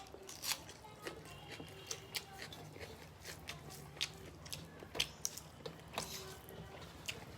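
Close-mic eating sounds: chewing and lip smacks with irregular sharp clicks as food is eaten from a plate, over a faint steady low hum.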